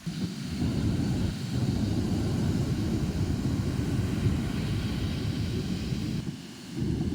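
Strong wind buffeting the microphone: a loud, ragged low rumble that starts suddenly and dips briefly near the end before surging again.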